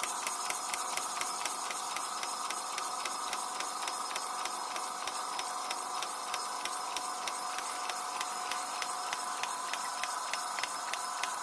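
Stuart S50 model horizontal engine running on compressed air, ticking over with an even, rapid beat of exhaust clicks over a steady hiss.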